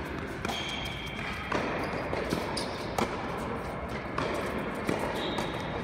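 Doubles tennis rally on an indoor hard court: sharp racket strikes on the ball and ball bounces, about one every second, echoing in a large hall.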